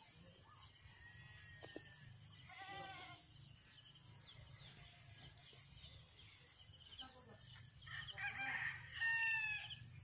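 Rooster crowing, a shorter call about three seconds in and a louder one near the end, over a steady high-pitched chorus of crickets.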